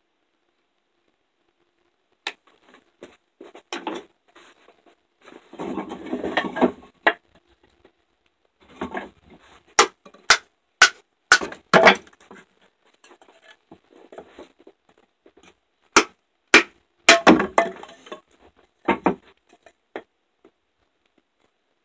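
Batoning: a wooden baton strikes the spine of an MTech fixed-blade knife set into the end of a board, making sharp knocks in two clusters, with rustling and scraping of handling between them.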